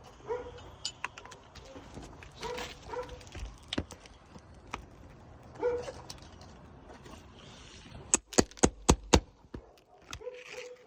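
Roofing hand tools worked on asphalt shingles: scattered clicks and taps, then a quick run of about six sharp knocks near the end, like a hammer striking while starting to pull nails.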